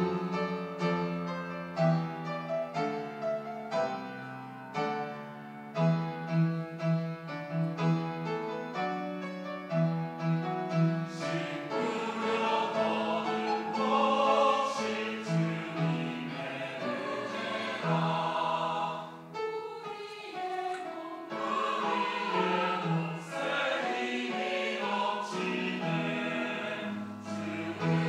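Church choir singing a sacred anthem with piano accompaniment; the singing grows fuller about eleven seconds in.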